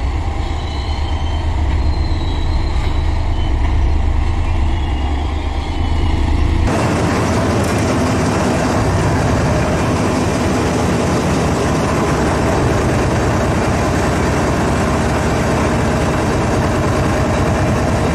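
Diesel locomotive hauling a goods train, its engine giving a steady low rumble. About seven seconds in the sound changes abruptly to a loud, steady rushing noise heard from aboard the moving train.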